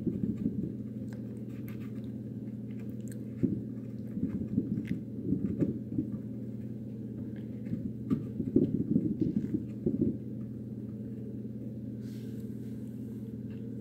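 Paintbrush scrubbing and dabbing paint onto a linen-covered lampshade, in scratchy bouts with pauses between, over a steady low hum.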